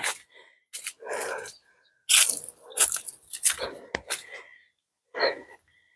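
A person breathing hard in short, irregular huffs, winded from walking uphill.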